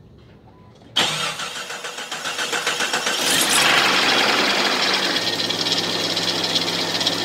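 1999 Jeep Cherokee XJ engine starting about a second in, then running with a fast rattle throughout. The owner compares the rattle to the marble in a spray-paint can and suspects a loose pulley.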